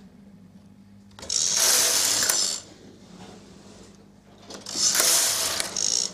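Knitting machine carriage pushed across the needle bed twice, each pass a rattling, sliding sweep of about a second and a half, with quiet gaps between while single needles are brought into work by hand.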